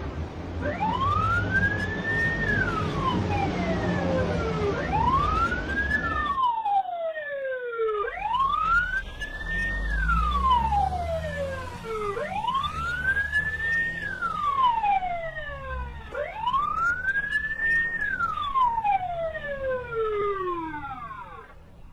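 Police siren wailing: a slow rise and fall in pitch that repeats about every four seconds, five full cycles, over a low steady rumble.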